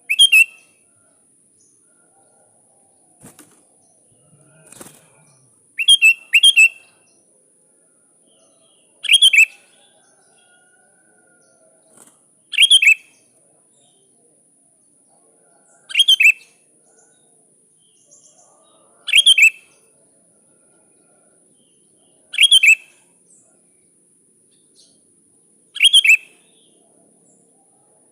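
Sooty-headed bulbul calling to a rival: short, bright, bubbly phrases repeated roughly every three seconds, with a faint steady hiss behind.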